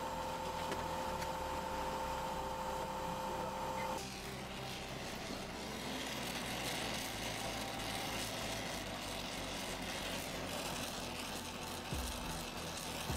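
Gas torch flame hissing steadily as it heats a brass corner joint for silver soldering, starting about four seconds in. Before it there is a steady two-tone hum.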